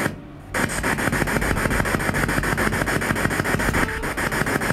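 Spirit box sweeping through radio frequencies: rapid, evenly chopped bursts of radio static, resuming after a brief drop about half a second in.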